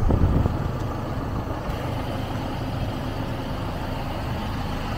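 Dieci telehandler's diesel engine running steadily, a low even rumble.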